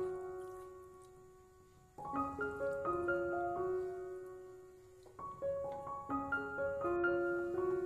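Background solo piano music: slow phrases of rising broken chords, each note left to ring and fade before the next phrase begins.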